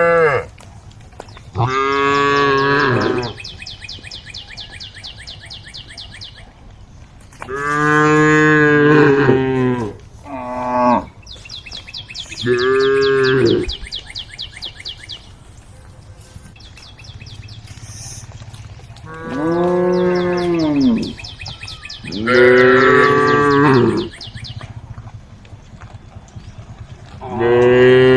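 Cows mooing, about seven long calls a few seconds apart, each rising and falling in pitch.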